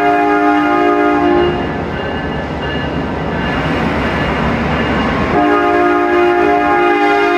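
Amtrak passenger train's air horn sounding two long blasts: the first cuts off about a second and a half in, the second starts about two seconds before the end. Between the blasts the train's engine and wheels rumble.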